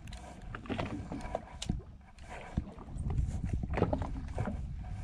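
Wind rumbling on the microphone, louder from about halfway through, with scattered light clicks and knocks from a baitcasting reel being cranked in short turns to work a slow-pitch jig.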